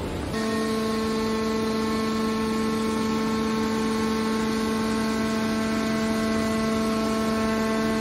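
Steady hum of a scrap metal baler's hydraulic power unit, its electric motor and pump running at one unchanging pitch with overtones while the lid cylinder swings the lid closed. It sets in about a third of a second in, after a moment of plain noise.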